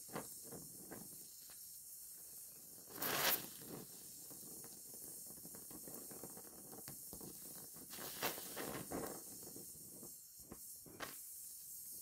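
Gas welding torch running with a steady hiss while steel filler rod is melted into a car body seam, crackling and sputtering irregularly, with louder sputters about 3 s in and around 8 to 9 s.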